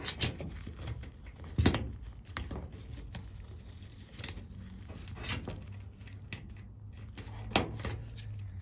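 Scattered clicks and light rattles of dryer wires and their metal terminals being handled and moved into place, a few sharper clicks standing out, over a low steady hum.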